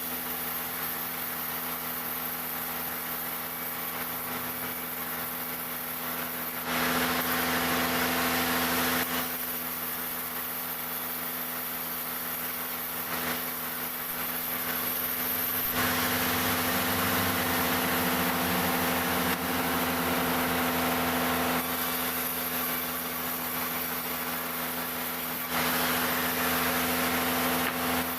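Wood-cutting sawmill machine running steadily, with three louder, noisier stretches (about a quarter of the way in, through the middle, and near the end) as the saw cuts through jackfruit timber.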